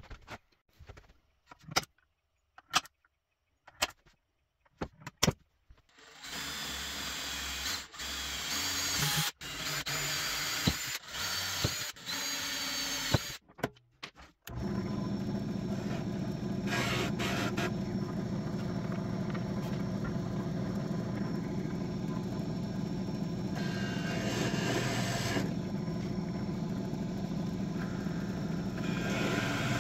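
A few light clicks and knocks, then a power drill running in several short bursts, drilling holes in walnut. About halfway through, a steady mechanical drone sets in and runs on.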